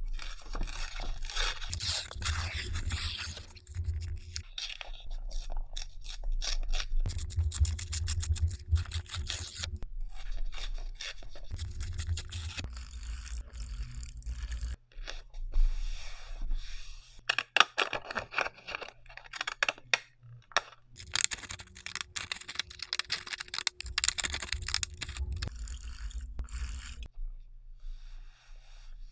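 Close-miked paper crafting: sheets of patterned paper and torn white paper being handled, rubbed and pressed flat, with an adhesive tape runner drawn across the paper. The scratchy rustling comes in several stretches of a few seconds each, with short pauses between them.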